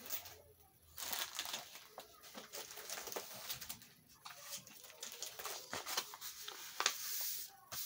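Plastic packaging of a diamond painting kit crinkling and rustling as it is handled, with many small clicks.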